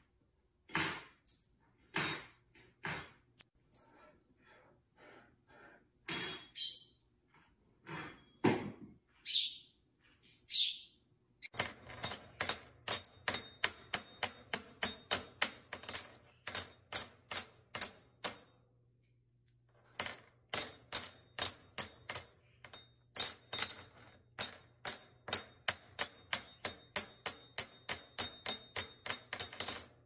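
Green-cheeked conure clattering a metal spoon on a countertop, scattered taps with a few short high chirps. After a break, a fast even run of sharp clicks, about three a second, over a low hum, pausing briefly near two-thirds through.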